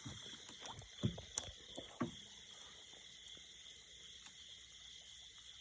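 Water splashing and sloshing as a blue catfish is let go from a landing net into a pond, a few short splashes in the first two seconds, then only faint steady outdoor background.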